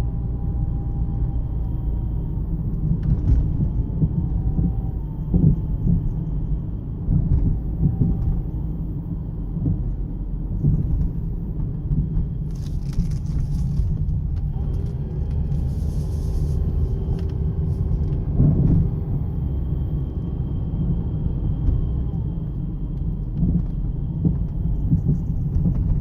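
Steady low road rumble inside the cabin of a moving 2009 Jeep Compass 4x4, with a few separate thumps from the front floor area over bumps: the knock of worn front sway bar links.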